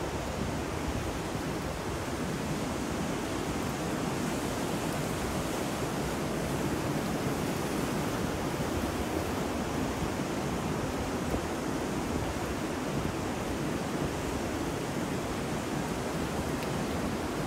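Ocean surf mixed with rain and wind: a steady, dense rushing noise with no single wave crash standing out.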